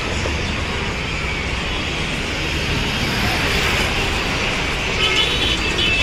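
Steady road traffic noise with a low rumble, and a couple of short horn toots near the end.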